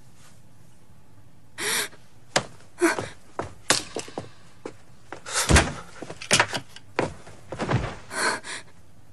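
Sound effects of a short struggle at a door: a sharp gasp, then a quick string of knocks, bumps and thuds, with sunglasses clattering onto the floor.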